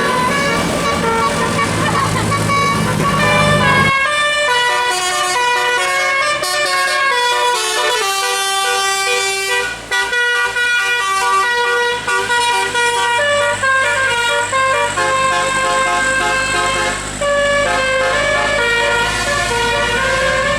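A bus's telolet musical air horn playing a fast tune, its notes stepping up and down in pitch several times a second. Under the start runs a low engine rumble, which cuts off sharply about four seconds in.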